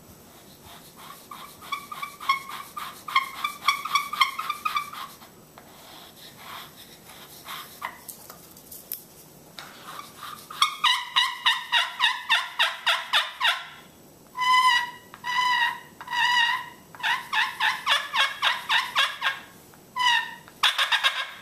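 A homemade slate-over-turtle-shell pot turkey call played with a peg striker, imitating a turkey: soft, fast notes for the first few seconds, a louder quick run of notes about ten seconds in, then a string of separate yelps near the end.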